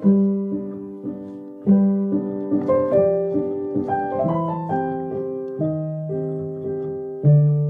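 Background piano music: a gentle melody over held chords, each note struck and then fading.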